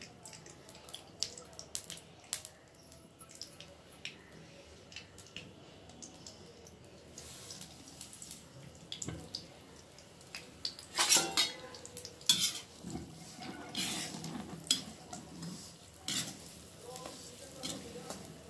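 Coarsely ground moong dal going into hot ghee in an iron kadhai with a light sizzle, then a metal spatula stirring it, scraping and clanking against the iron pan with a few sharp clanks in the second half.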